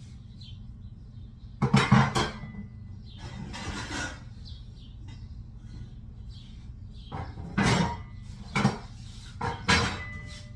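Metal cooking pots clanking and knocking together as a pot is pulled out and handled. The loudest clatter comes about two seconds in, with several more knocks in the second half, over a steady low hum.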